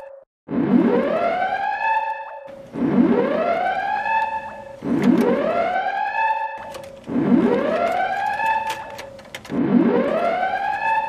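Whooping alarm siren, each whoop sliding up in pitch for about a second and a half and then cutting off, repeating about every two seconds: an overload warning.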